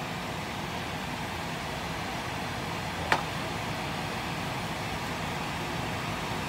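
Steady fan-like kitchen hum while a plastic spoon stirs rice porridge in an enamel pan, with one sharp tap of the spoon about three seconds in.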